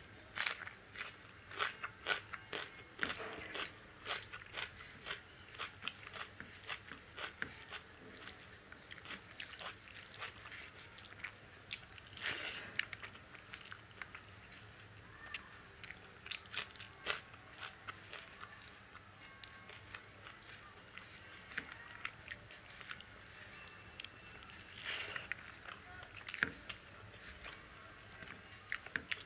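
Close-miked chewing of mouthfuls of dal, rice and potato sabzi eaten by hand: an irregular run of short wet clicks, smacks and small crunches, with a few louder crunches about twelve and twenty-five seconds in.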